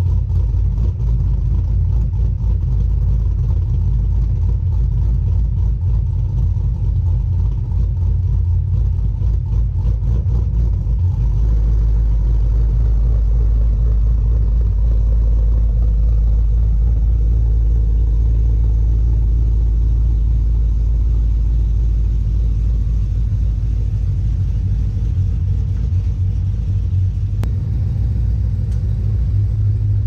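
2010 Camaro SS's 6.2-litre V8 running at low speed as the car is manoeuvred at walking pace; a steady low rumble that deepens about eleven seconds in.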